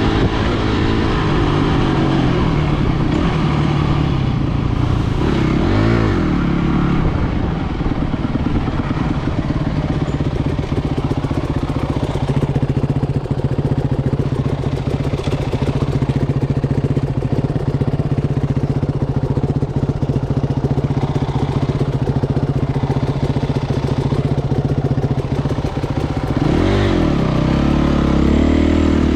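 An engine running steadily under load, its pitch swinging briefly about six seconds in and again near the end as the speed changes.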